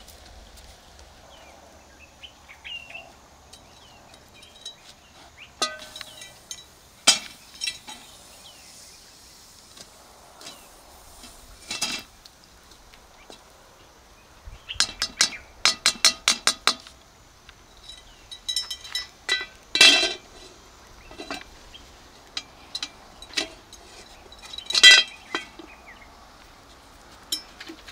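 Clinks and knocks of a cast-iron three-legged pot and a wooden spoon stirring stiff maize-meal pap inside it. The knocks are sparse at first, then come in quick runs of taps in the second half.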